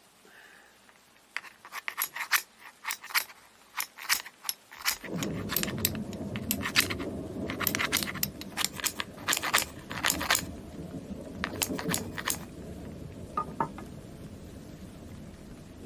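Sharp metallic clinks and scrapes in quick, irregular runs, like metal pieces knocking together as they are handled. About five seconds in, a steady low rumbling noise starts and slowly fades toward the end.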